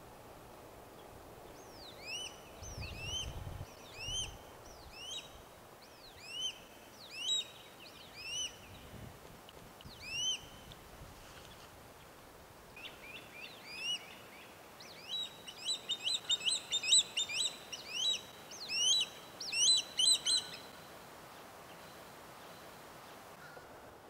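Swallow-tailed kites calling: high whistled notes, each rising then dropping, about one a second at first, then faster runs of several a second before stopping a few seconds before the end.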